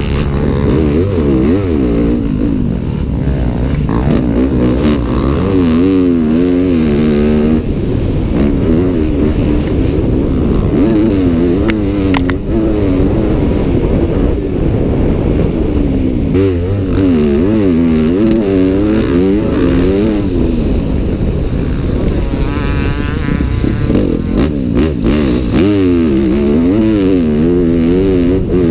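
2015 Yamaha YZ250F's single-cylinder four-stroke engine through a full FMF titanium exhaust, revving up and falling back over and over as the rider accelerates, shifts and rolls off around a motocross track. A few sharp clicks cut through along the way.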